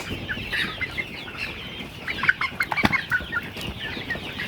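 A flock of eight-week-old layer pullets chirping and clucking all together, with a short knock almost three seconds in.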